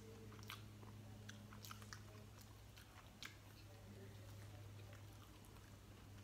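Faint chewing and biting into a burger, with soft mouth clicks and smacks scattered through the first few seconds, over a low steady hum.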